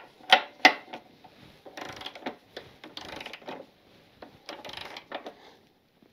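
Ratchet of a torque wrench tightening a motorcycle's rear axle nut. A few sharp clicks as the socket goes onto the nut are followed by spells of rapid ratchet clicking as the handle is worked.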